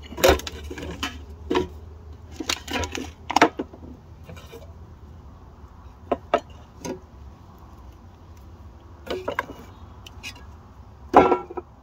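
Tin cans being set back upright on a wooden shelf: a string of sharp metal clanks and knocks of the cans on the wood, scattered irregularly, loudest just after the start and again near the end.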